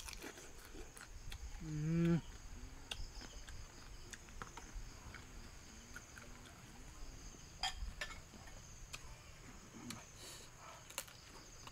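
Someone eating small cooked crabs by hand: scattered crunching, chewing and smacking clicks, with a short hummed "mm" that rises in pitch about two seconds in, the loudest sound. A steady high chorus of night insects runs underneath.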